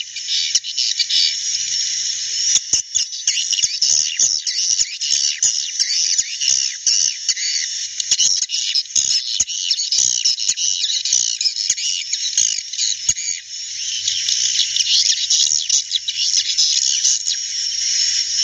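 A flock of edible-nest swiftlets twittering in a dense, continuous high chatter, with many sharp clicks mixed in.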